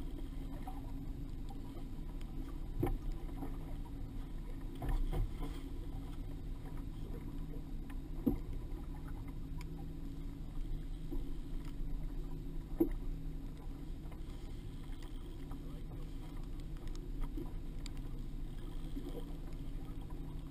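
A boat's small outboard motor running steadily at low speed, with a few sharp knocks against the boat scattered through it.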